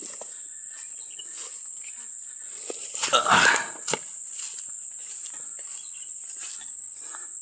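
Steady high-pitched drone of insects, with faint scattered rustles and clicks and one louder rustling crunch about three seconds in.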